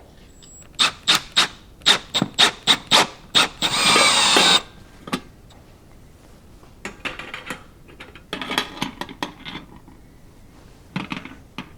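Tool work while mounting something on a shop wall: a quick run of about a dozen sharp knocks, then a brief squealing whir like a drill driving a screw, followed by softer scraping and rubbing.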